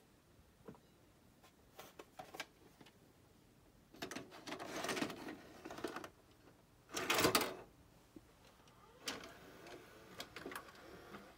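Emerson four-head hi-fi VHS VCR's cassette mechanism working: scattered clicks, then whirring, clattering stretches, the loudest just past halfway, and a few more clicks near the end.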